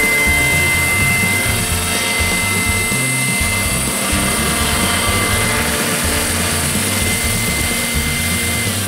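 Large radio-controlled model helicopter's motor and rotor whine, a steady high tone that cuts off near the end as it lands, with music underneath.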